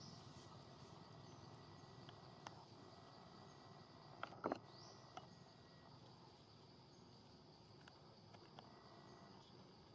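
Faint, steady insect chirring in the background, with a few soft clicks about four and a half seconds in.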